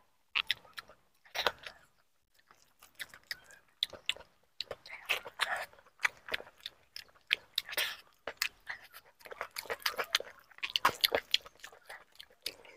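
Chewing and lip-smacking of a man eating rice with his hand, close to a clip-on microphone: runs of short, wet mouth clicks with brief pauses.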